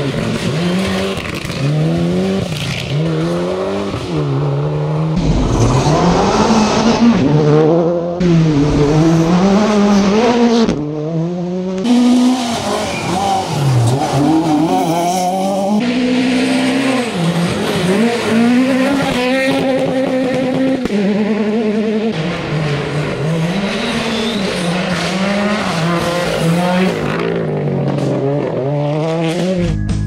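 Rally cars driven flat out on a gravel stage. The engines rev up and drop back again and again through gear changes, with gravel noise underneath. The sound breaks off abruptly several times as it cuts from one car to the next.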